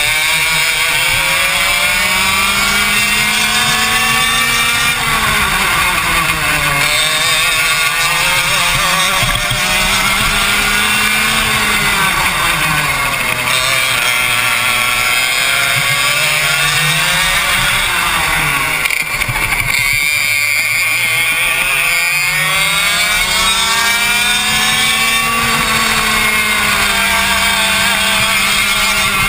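Racing kart engine close to the microphone, revving high along the straights and falling in pitch each time the kart slows for a corner, then climbing again, several times over.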